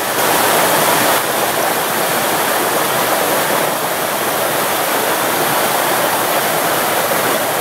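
Shallow stream water running steadily over a riffle: an even, unbroken rush.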